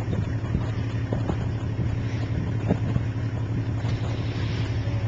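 Safari vehicle's engine idling with a steady low hum, with a few light knocks.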